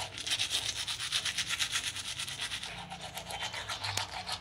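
Manual toothbrush scrubbing teeth in quick, regular back-and-forth strokes.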